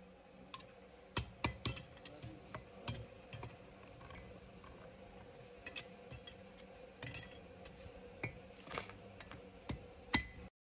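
Farrier's hammer and tongs on a horseshoe at the anvil: about a dozen sharp metallic clinks, unevenly spaced, over a faint steady hum.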